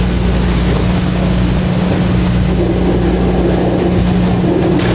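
A steady, loud droning hum with a rushing noise and one unchanging low tone.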